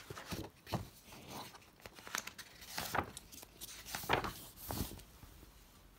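Pages of a picture book being turned by hand: a series of short paper rustles and flaps as the cover is opened and the front pages are leafed through.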